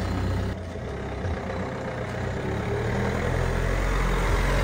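Steady low rumble of a vehicle's engine and road noise while driving, dipping briefly about half a second in and then slowly growing louder.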